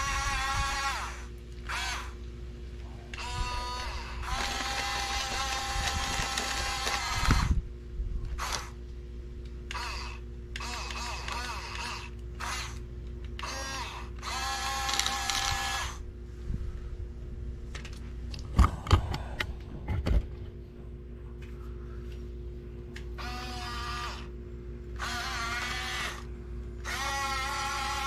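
Huina 1569 radio-controlled toy bulldozer's electric drive motors and gearboxes whining in repeated stop-start bursts as it pushes soil and leaves. A few sharp knocks come about two-thirds of the way through.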